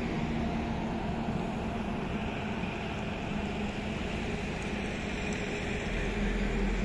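Highway traffic: heavy trucks' engines running and tyres on the road as they pass, with a deeper low rumble building near the end as a truck approaches.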